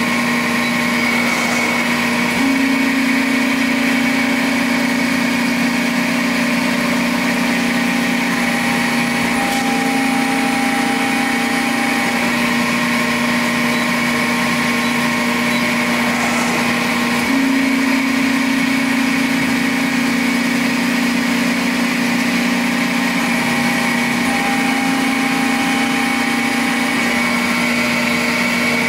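Accurpress CNC hydraulic press brake running, its hydraulic pump and motor humming steadily. Twice, about two seconds in and again a little past halfway, the hum rises slightly in pitch and grows a little louder for several seconds before settling back.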